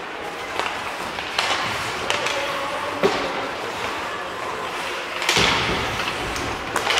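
Ice hockey play: skate blades scraping the ice and sticks clacking on the puck and each other, with a sharp knock about three seconds in and a longer, louder scrape about five seconds in.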